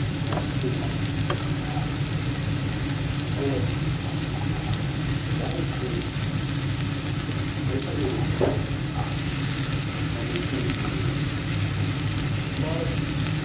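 Chicken strips sizzling in oil on a flat griddle pan, with a few light clicks and scrapes as metal tongs turn the pieces. A steady low hum runs beneath.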